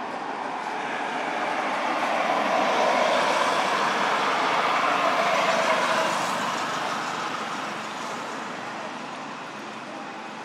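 A motor vehicle passing by: engine and road noise that swells over the first few seconds, holds, then fades away.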